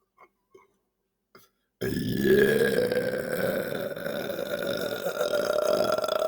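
A few faint mouth clicks, then about two seconds in a man lets out one long, loud belch lasting about five seconds, its pitch slowly rising.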